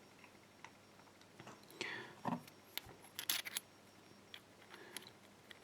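Faint clicks and scrapes of small metal lock parts being handled: the disassembled lock's core and sidebar knocking and sliding against each other, with a quick cluster of sharp clicks about halfway through.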